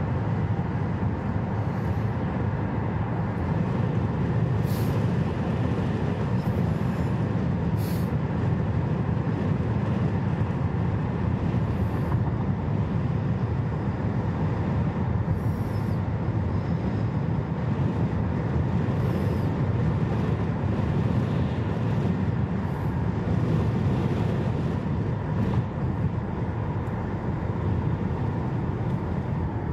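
Steady road and engine noise heard from inside a moving car's cabin, a low tyre rumble that holds even throughout, with a few faint ticks.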